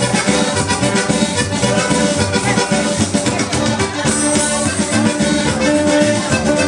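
Loud, upbeat Latin dance music with a steady beat, played for dancing.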